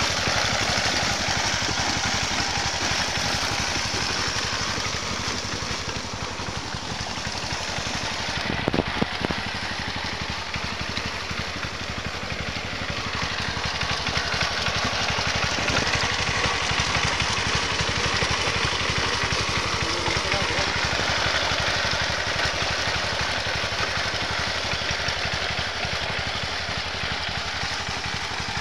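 Tractor engine running steadily while smoothing a flooded rice paddy after plowing, its sound easing off a little and building again, with a few sharp knocks about nine seconds in.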